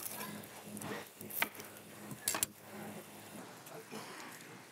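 Kitchen work sounds: two sharp knocks of utensils or cookware, about a second and a half and two and a half seconds in, over a low steady hum that stops a little after three seconds.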